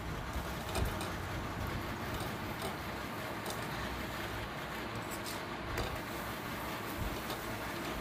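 Steady hiss of a paratha cooking on a hot tawa over a gas burner, with a few light taps and scrapes of a metal spatula pressing it.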